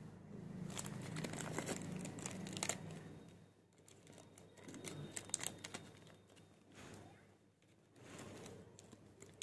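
Crinkling and crackling of small paper-and-plastic packaging being handled and torn open close to the microphone, in three bursts, loudest in the first three seconds.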